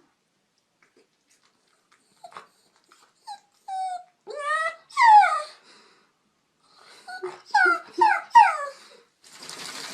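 Dog whining in protest at a bath: short cries that bend up and down in pitch, first a few spread out, then a quicker run of about five. A steady hiss starts near the end.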